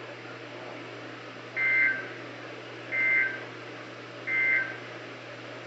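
Emergency Alert System SAME digital data tones: three short, identical two-tone chirps about a second and a half apart. Bursts this short mark the end-of-message code that closes an alert or required weekly test. A steady low hum runs underneath.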